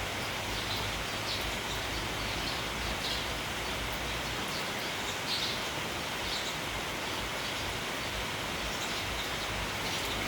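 Steady hiss of rain and wind, with a flock of sparrows giving scattered short chirps throughout.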